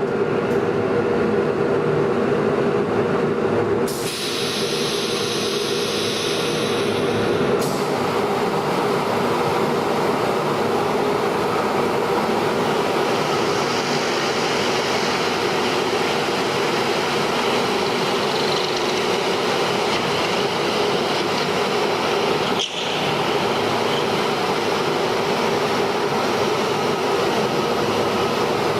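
An SMC panel hole drilling machine running with a steady mechanical noise and a held hum-like tone. A higher hiss joins between about four and seven seconds in, and the noise dips briefly near the end.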